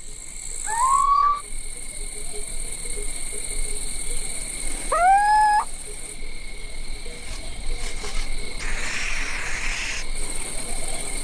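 An owl calling twice, about four seconds apart: each call is a short, mewing note that rises in pitch and then holds. Underneath runs a steady chorus of crickets.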